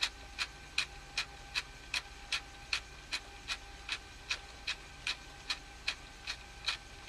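Even, regular mechanical ticking, about two and a half ticks a second, over a faint steady hum.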